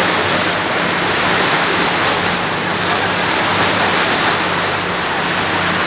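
Boat under way on a lake: a loud, steady rush of water and wind, with a low engine hum underneath.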